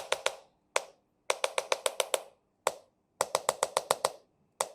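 Chiropractic hammer tapping in a repeating pattern: one tap, then a quick run of about eight taps, twice over.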